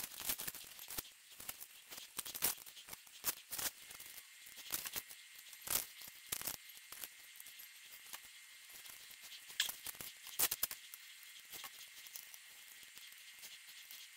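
Scattered light clicks, ticks and rustles at an irregular pace, with a faint steady high tone coming in about four seconds in.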